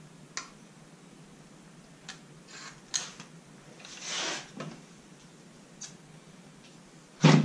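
Clicks of a SpitJack gun-type marinade injector, then a short sucking hiss about four seconds in as it draws injection liquid up from the bowl.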